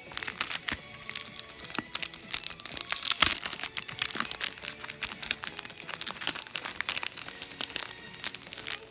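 Packaging being opened and handled: a dense run of crinkling and crackling that starts suddenly, with soft background music underneath.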